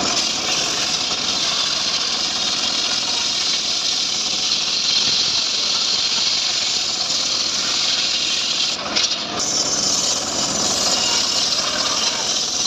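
Homemade engine-driven sawmill rig (gergaji srekel) running steadily while cutting a sengon log, with a hissing cutting noise over the engine. The noise dips briefly about nine seconds in.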